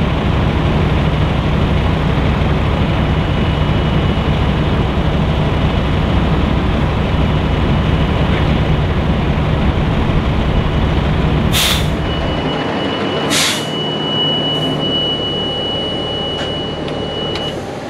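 Heavy diesel truck engine idling, then shutting down about two-thirds of the way through. Two short hisses of air come around the shutdown, followed by a steady high warning beep lasting about five seconds.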